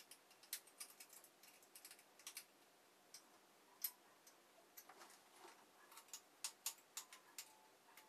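Faint, irregular small clicks and ticks of a small screwdriver working the tiny screw in the bottom of a metal towel rail bracket, tightening the bracket onto its wall plate.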